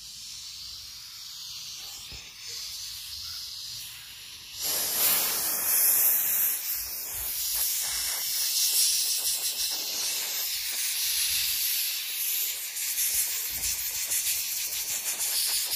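High-pressure air hissing out of a PCP air rifle's 4000 psi air tube through a brass mini male quick coupler pushed into its fill valve. The hiss is faint at first and turns much louder and rougher about four and a half seconds in. The tube is being bled empty by hand because its Teflon valve seat blocks the transfer port, so the air will not vent by cocking and firing.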